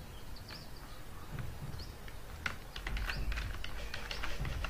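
Computer keyboard typing: a scatter of key clicks that grows denser about a second and a half in, over a low hum.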